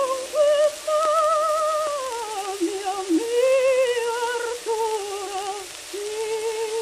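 Soprano voice on a 1908 acoustic gramophone recording, singing an ornamented line with a wide vibrato. The sound is thin with no bass and sits under a steady crackle of record surface noise.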